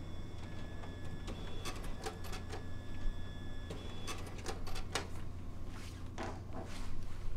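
Office copier-printer running: a steady low hum under a string of clicks and ticks, with short steady whines that start and stop as the paper feeds.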